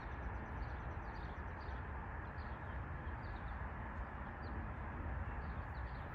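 Outdoor ambience: small birds chirping over and over above a steady low rumbling noise.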